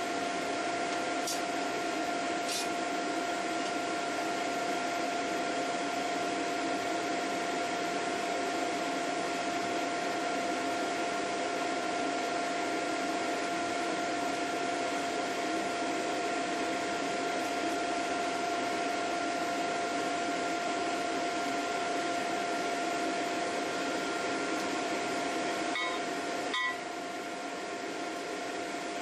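Foundry furnace blower running steadily during a cast-iron melt: an even rushing noise with a constant whine. A few light clicks come in the first seconds, and a couple of clinks near the end, after which the noise drops slightly.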